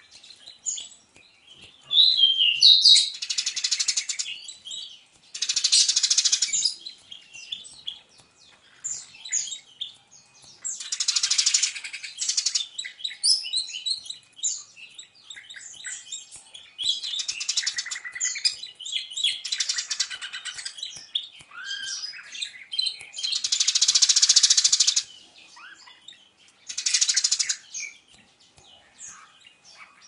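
A budgerigar and a Eurasian tree sparrow calling back and forth: about eight bursts of harsh, rapid chatter, each a second or two long, with quick chirps and twitters in between.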